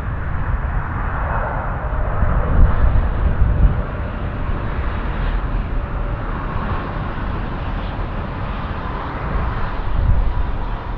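Jet engine noise from a landing Airbus A330-300 airliner: a steady rumble with a faint whine, holding at about the same loudness throughout.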